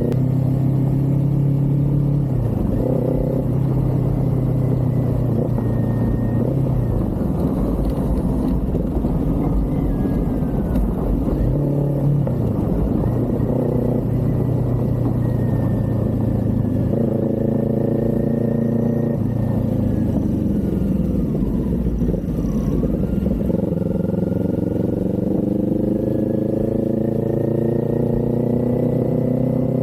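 Kawasaki Z400's 399 cc parallel-twin engine under way, its pitch holding steady, dropping several times as the throttle is rolled off and through gear changes, then climbing slowly near the end, over a steady rush of wind.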